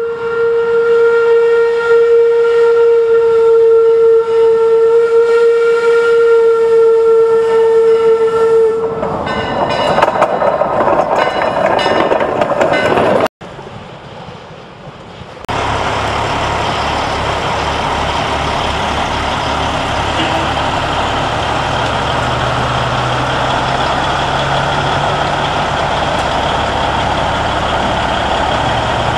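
A steam locomotive whistle blows one long, steady note for about nine seconds, followed by a few seconds of rushing noise. After a cut, a diesel semi truck's engine runs steadily at idle.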